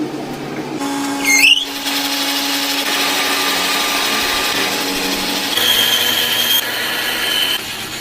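Workshop power tool running with a steady hum, a brief rising screech about a second and a half in, then a high steady whine with hiss in the second half.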